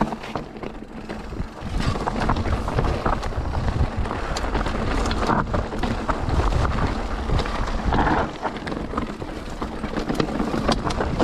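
Mountain bike riding over a rocky trail: tyres rolling over stones and the bike rattling, with many short knocks and clicks, over a steady rumble of wind on the microphone.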